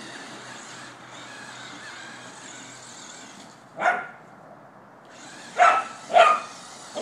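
Border collie barking three times, once about four seconds in and then twice in quick succession near the end, over the steady hiss of the electric RC car running. The hiss cuts out for about a second and a half in the middle.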